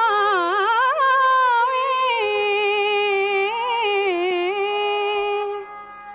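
A woman singing a long, ornamented held note in Hindustani light-classical style, with slow pitch glides and turns over a steady low drone. The note fades out near the end.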